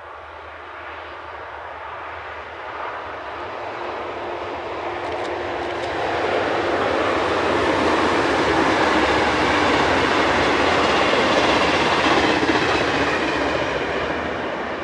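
Locomotive-hauled passenger train crossing a concrete railway viaduct, the rumble of its wheels growing louder as it approaches, loudest about eight to twelve seconds in, then fading as it moves away.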